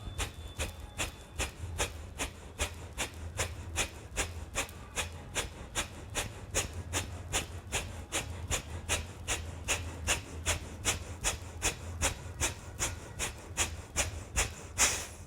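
A person's sharp, forceful breath exhalations in Virechan Gati yogic breathing, repeated evenly at about three a second.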